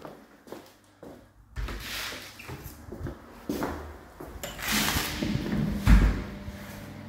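Knocks, clunks and rustling from footsteps and handling as an interior door is opened, with a louder thump near the end.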